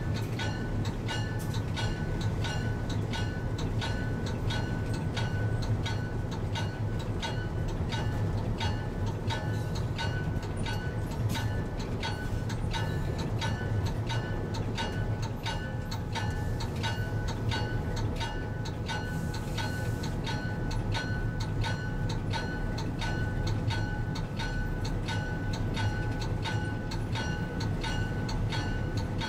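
Diesel locomotive running with a steady low drone, heard from its cab, while its bell rings continuously at about three strikes a second.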